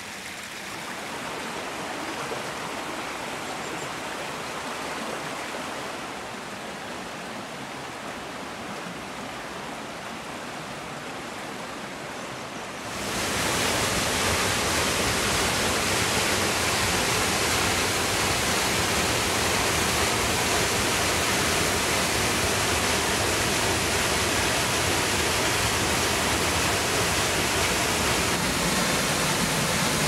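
Steady rush of falling water from the Dolgoch Falls waterfall on the Nant Dol-gôch stream. It is softer at first, and about 13 s in it jumps suddenly to a louder, fuller, steady roar of the falls.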